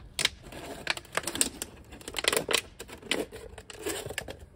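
Irregular clicking and clattering of small hard objects being handled, a quick uneven run of sharp clicks and knocks that is busiest around the middle.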